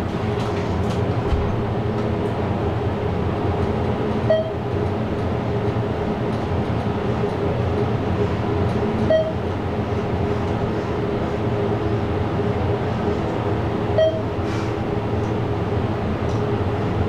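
Thyssenkrupp hydraulic elevator car descending, heard from inside the cab: a steady hum. A short floor-passing beep sounds about every five seconds, three times in all, as the car passes each floor.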